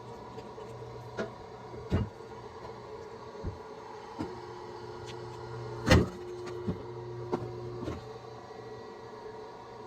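A steady small-motor hum with a few sharp knocks over it, the loudest about six seconds in.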